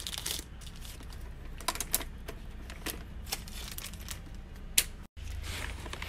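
Magnetic hematite beads clicking against one another as they are handled in a plastic bag: sharp, separate clicks every second or so, with the bag rustling near the end over a low steady hum.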